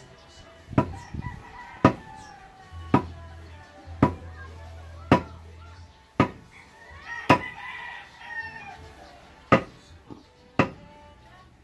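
Regular metal-on-metal strikes, about one a second and ten in all, each ringing briefly: pounding on the pipe while a deep well is being sunk. A rooster crows about seven seconds in.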